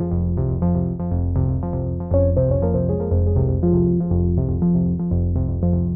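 Background music with a steady beat of quick, evenly spaced keyboard-like notes.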